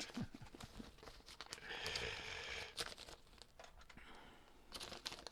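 Faint rustling and handling noise with scattered small clicks, the rustle strongest from about two to three seconds in.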